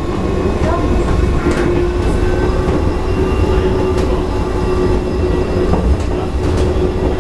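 Bombardier rubber-tyred people-mover train running at speed, heard from inside the car: a steady low rumble with a constant hum over it and a few faint clicks.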